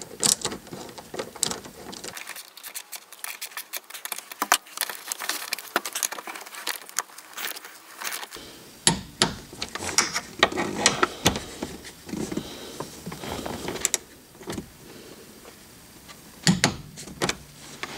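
Irregular metallic clicks and clinks of a socket and torque wrench tightening the strut top-mount bolts to 25 Nm.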